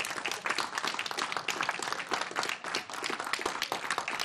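A room of people applauding, many hands clapping at once in a dense, uneven patter.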